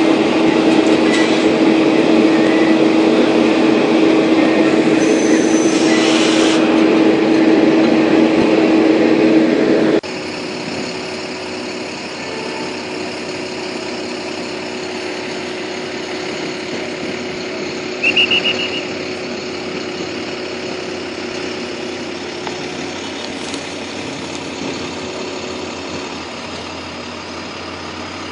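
Heavy truck engine running steadily with a constant hum, then after a sudden cut a quieter bed of idling cars and street traffic, broken once by a brief high chirp.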